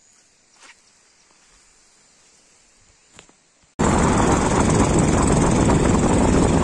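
Loud wind rush across the phone's microphone while riding on a motorcycle, the bike running underneath; it starts abruptly about four seconds in, after a near-quiet stretch with two faint clicks.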